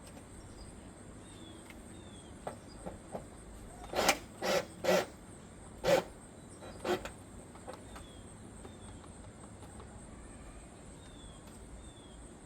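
A handful of sharp knocks and taps from hand work on the gutter, about five within three seconds midway, with a few lighter ticks before them. Under them runs a steady high insect buzz, with faint short falling bird chirps now and then.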